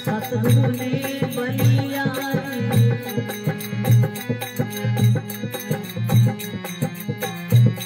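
Instrumental passage of a Rajasthani folk bhajan: a harmonium holds and plays the melody over a drum beat with a strong low stroke about once a second and fast, even high ticks from a rattle or small cymbals.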